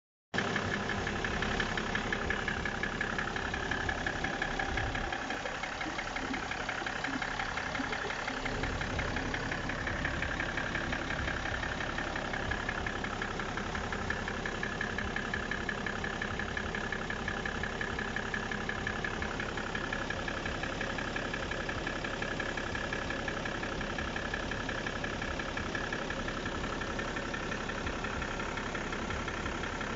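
BMW E60 535d's straight-six diesel engine running steadily with a loud, fast, rhythmic knocking. The owner is unsure whether the engine is running correctly.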